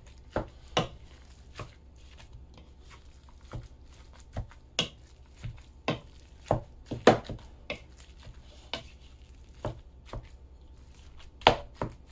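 Wooden spoon chopping through raw ground-beef meatloaf mix in a plastic mixing bowl: irregular knocks and taps of the spoon against the bowl, loudest about seven seconds in and again near the end.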